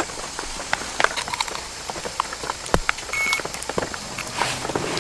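Irregular light clicks and taps from a power cable and plug being handled and plugged in at a portable power station, with one heavier knock near the middle. A short, high electronic beep sounds about three seconds in.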